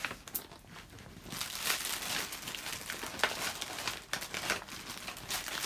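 Packaging crinkling and rustling as items are pulled from a box, light at first, then a busy run of crackles and sharp rustles from about a second and a half in.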